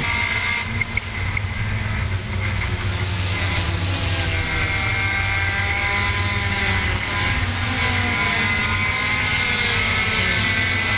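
Compact touring race car engine heard from inside the cockpit at racing speed. The engine note rises and falls as the car lifts and accelerates around the oval, over steady wind and road noise.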